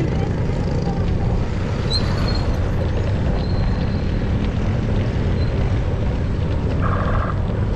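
Steady low rumble of wind buffeting the microphone and road noise while riding along a concrete road.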